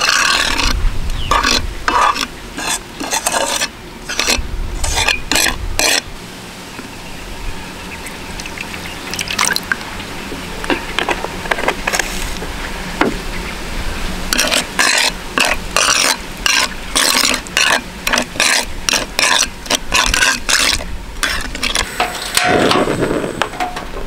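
Metal spoon stirring and scraping sauce around a metal frying pan, in quick runs of strokes.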